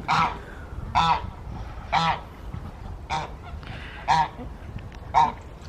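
Geese honking: six short honks, about a second apart.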